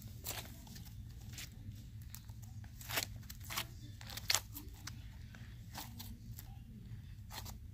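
Homemade white glue-and-borax slime being stretched and squeezed by hand, giving off scattered, irregular clicks and small pops over a low steady hum.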